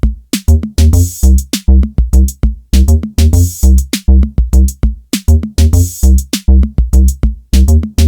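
Background music with a steady electronic drum beat and a heavy bass drum.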